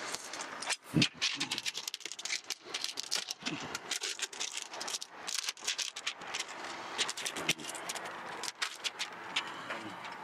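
Clear plastic transfer film and its backing liner crackling and crinkling as they are peeled apart and handled, a dense irregular run of small clicks, with a soft thump about a second in.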